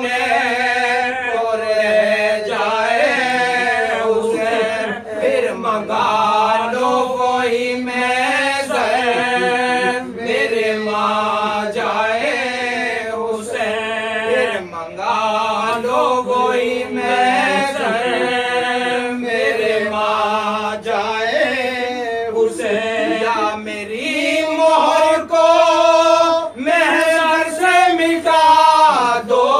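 Male voices chanting a Muharram marsiya in Urdu without accompaniment, a lead reciter with other voices joining the melody; the chanting grows louder for the last few seconds.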